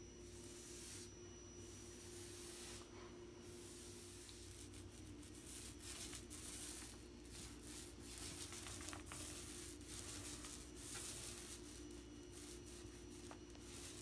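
Faint swishing and rubbing of a paintbrush stroked along wooden door trim, in short irregular strokes, over a steady low hum.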